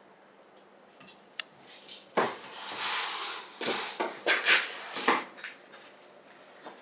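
Cats playing with an open cardboard box on a hard floor: rustling, scraping and knocking of the cardboard in irregular bursts, starting about two seconds in and lasting about three seconds.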